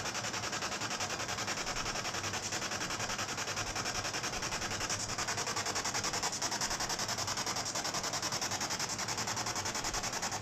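Ghost-hunting spirit box sweeping through radio stations: a steady hiss of radio static chopped into a fast, even pulse.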